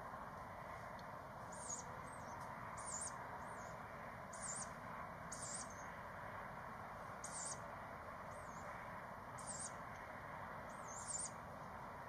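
Young tawny owl giving short, high, wheezy begging calls, about ten in a row, roughly one a second, over a steady background hiss.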